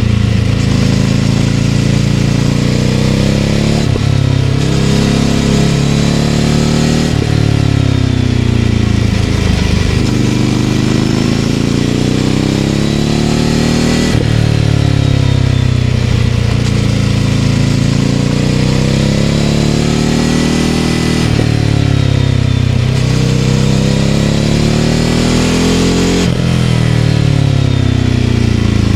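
Ducati Scrambler 800's air-cooled L-twin engine running through a Leovince LV-10 exhaust as the bike is ridden. Engine pitch climbs under acceleration and drops sharply at each of several gear changes, then falls away as the bike slows.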